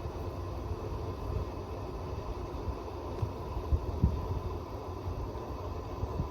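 Pool equipment running: a steady low rumble with a faint even hum and a couple of dull thumps a little before the middle.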